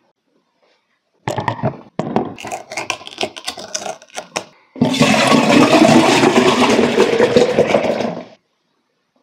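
A plastic bottle of carrot juice is opened, with a run of sharp clicks and crinkles as the seal comes off. Then the juice is poured from the 1.5 L bottle into a tall glass in a steady, loud gush that starts about five seconds in and stops suddenly after about three and a half seconds.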